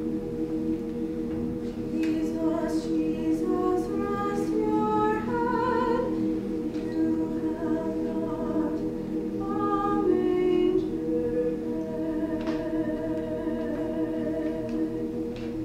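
Mixed choir singing a slow carol: a low chord is held throughout while an upper line of notes climbs step by step above it, twice.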